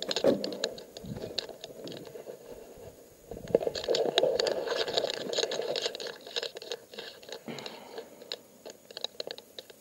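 Footsteps crunching through brush and snapping twigs, with twigs brushing and scraping; busier from about three and a half seconds in.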